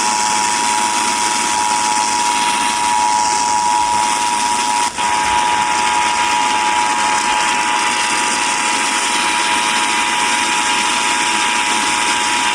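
Emergency Alert System attention signal received on an FM radio: a steady two-tone alert tone held for about twelve seconds over loud static hiss, with a brief dropout about five seconds in. It is the alert tone that opens the Required Monthly Test.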